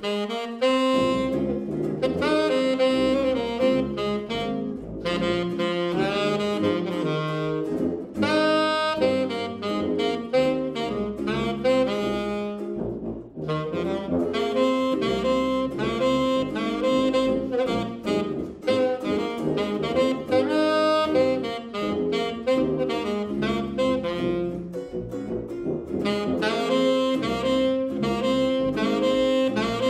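Small jazz group of tenor saxophone, archtop electric guitar and tuba playing an instrumental pop arrangement. The saxophone carries the melody over guitar chords and a tuba bass line, with a brief break about thirteen seconds in.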